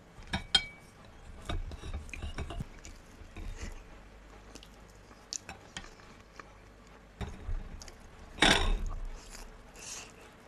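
Quiet close-up eating sounds: a fork clicking and scraping against a china plate and soft chewing of potato casserole, with a short louder noise about eight and a half seconds in as a forkful is taken.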